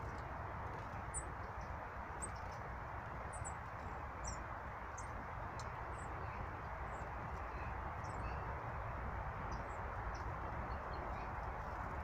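Small songbirds giving short, very high, thin calls, irregularly about once a second, over a steady low rushing background.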